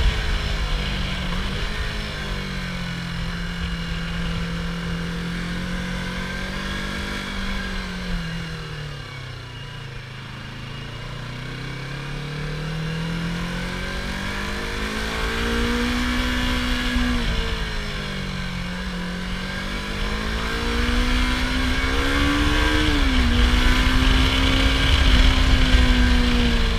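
Yamaha R25 parallel-twin engine on its stock exhaust, running steadily while its pitch falls slowly to a low about ten seconds in, then climbs again. The pitch drops suddenly about a second and a half in and again near the end.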